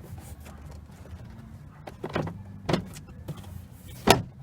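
Car door trim panel being pushed back onto the door: three sharp plastic clicks and knocks as it seats, the loudest near the end, over a steady low hum.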